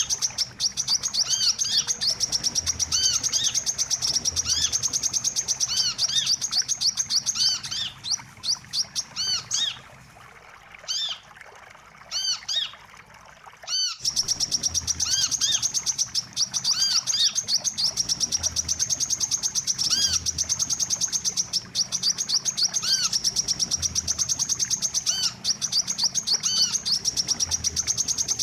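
Lure-call recording of a wiceh sunbird (kolibri manggar kelapa): a rapid, high-pitched chittering trill with short arched chirps scattered beneath it. The calls thin out and drop in level about a third of the way in, then break off and start again abruptly about halfway through, as if the recording is looped.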